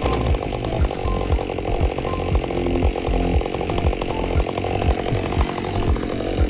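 Chainsaw running steadily while cutting through a log.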